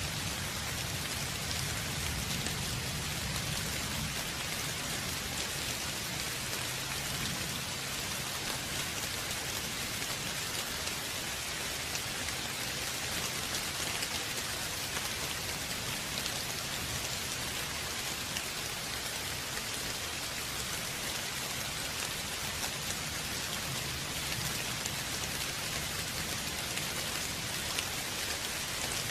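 Steady rainfall pattering on a surface, with a faint low rumble in the first few seconds that fades away.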